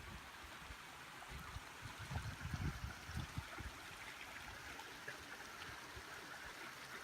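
A creek running: a steady rush of flowing water, with a few low thumps between about two and three and a half seconds in.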